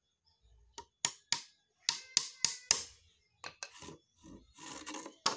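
Claw hammer tapping small nails into the thin wooden slats of a cage frame: about seven quick, sharp taps starting about a second in, then softer knocks and rubbing as the wooden frame is handled and turned over.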